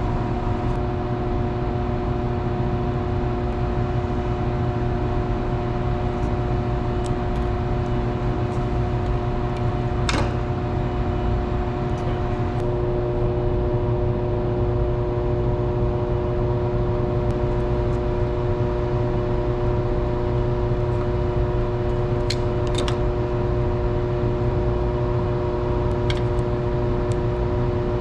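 Steady machinery hum, a deep rumble with several held tones over it; the set of tones changes about halfway through. A few light clicks sound over it.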